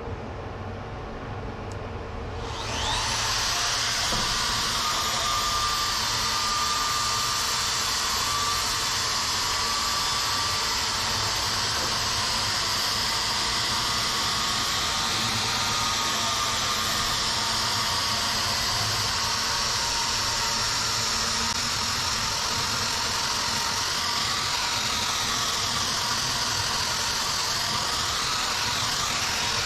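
Pole-mounted drywall sander with a 10-inch disc switching on about two and a half seconds in and running steadily, a thin whine over the motor's even whirr, as it sands the body-filled sheet metal of a truck's utility bed.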